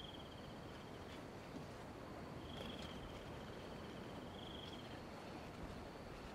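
An insect trilling outdoors: a high, rapidly pulsed trill in three bursts, the first about a second long at the start, the second about a second long from two and a half seconds in, and a short one near five seconds. A faint steady high buzz of other insects and a low hiss of background noise run under it.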